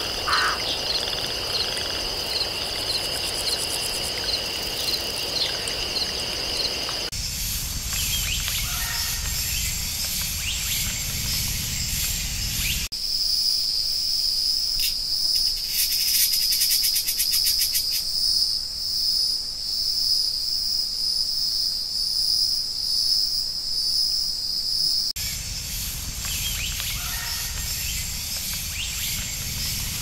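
Insects trilling steadily in a forest ambience. The mix changes several times, with a louder, higher single trill through the middle before the earlier layer returns near the end.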